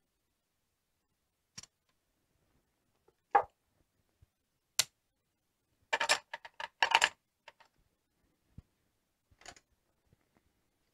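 Casino chips clicking as they are handled and stacked into a chip rack: a few single sharp clicks, then a quick run of clicks a little past the middle.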